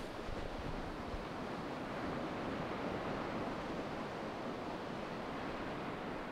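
Ocean surf washing onto a beach: a steady, even rush of breaking waves.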